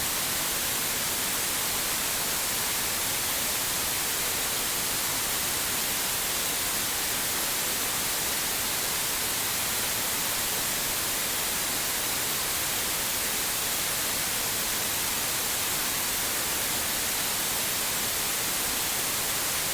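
Steady synthetic white noise: an even hiss, heaviest in the high end, with no change in level.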